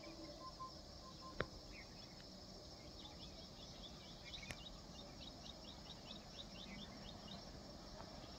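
Faint outdoor ambience: a bird gives a quick run of short chirps, about four a second, from about three seconds in for several seconds, over a steady high insect drone. A single sharp click about a second and a half in.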